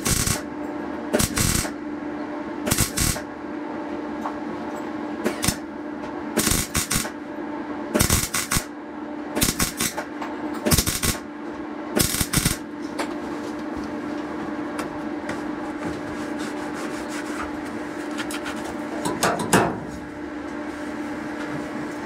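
MIG welder laying short stitch welds on steel: the arc crackles in bursts of about half a second, around ten in the first dozen seconds and one more near the end. A steady hum runs under the bursts.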